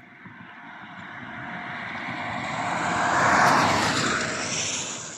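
A vehicle passing by on wet asphalt. Its tyre and engine noise swells to a peak about three and a half seconds in, then fades quickly.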